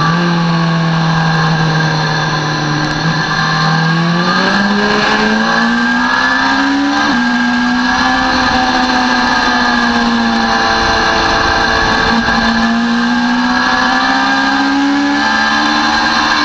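Sport motorcycle's engine at speed under hard acceleration: the pitch holds steady, climbs from about four seconds in, drops sharply at an upshift from second to third gear about seven seconds in, then climbs again near the end. A steady rush of wind runs under it.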